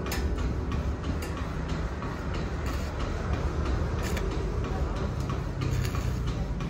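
A steady low hum with scattered clicks and taps, and near the end a stick welder striking an arc on a steel exhaust muffler.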